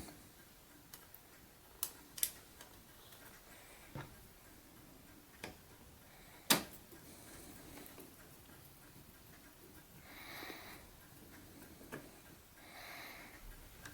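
Faint, scattered clicks and light metal ticks of a screwdriver driving a small screw back into the top plate of a door lock unit, with one sharper click about six and a half seconds in and two soft rustles near the end.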